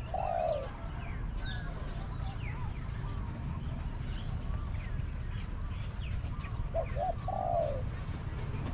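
Spotted dove cooing: two short notes and then a longer falling coo, heard twice, once at the start and again about seven seconds in, with small birds chirping throughout.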